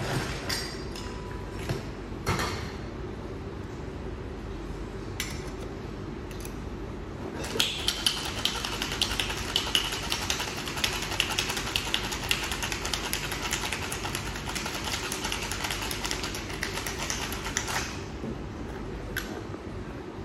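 A few separate clinks and knocks, then ice rattling hard inside a cocktail shaker for about ten seconds as a cocktail is shaken with ice. The rattle stops abruptly about two seconds before the end, and a single click follows.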